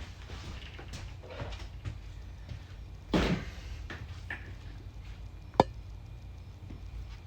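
Handling noises on a workbench over a steady low hum: a short rustling scrape about three seconds in, then one sharp click or knock, the loudest sound here.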